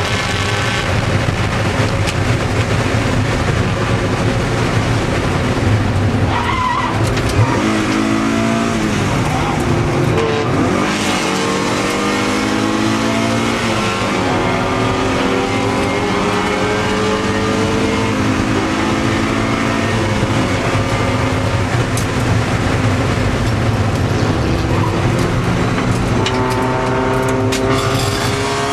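Race car engine heard from inside the cabin under hard acceleration, climbing in pitch and dropping back at each upshift, over steady road and wind noise. Tyres squeal briefly near the end.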